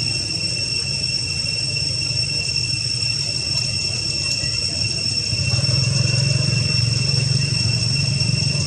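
A steady, high-pitched insect drone that does not waver, over a low rumble that grows louder about five and a half seconds in.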